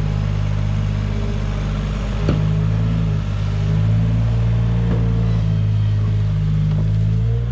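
Compact articulated loader's engine running steadily while it drives and carries straw, its pitch shifting slightly as it works. A single short knock about two seconds in.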